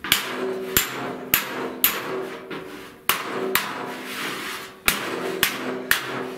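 Hammer blows on a 1970 Buick Wildcat's steel fender, about nine sharp strikes at an uneven pace, each followed by a short metallic ring from the panel. The fender is being hammered out to straighten a distorted lower section.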